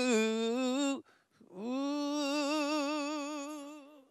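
A solo voice singing unaccompanied. One long held note dips in pitch just after the start and ends about a second in; after a short breath, a second long note with wide vibrato fades out near the end.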